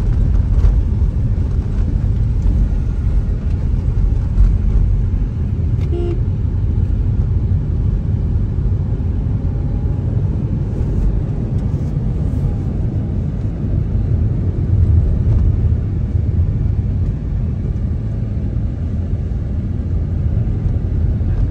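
Steady low road and engine rumble of a moving car heard from inside the cabin, with a brief higher tone about six seconds in.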